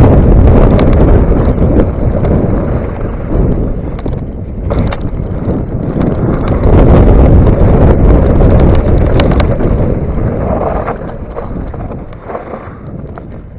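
Wind buffeting the microphone of an action camera riding on a mountain bike descending a gravel trail, mixed with sharp knocks and rattles from the bike over the rough ground. It dies away over the last few seconds as the bike slows onto flat ground.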